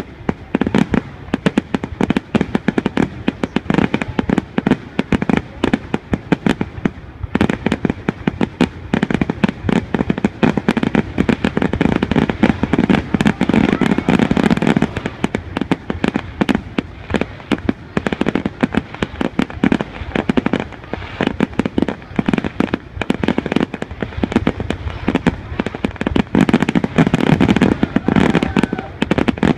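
Aerial fireworks display: shells bursting in rapid, continuous succession, many bangs a second overlapping one another, with heavier salvos around the middle and near the end.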